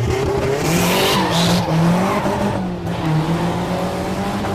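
Turbocharged Nissan 240 drift car being driven on track, its engine note rising and falling as it slides. A burst of tire squeal comes about a second in.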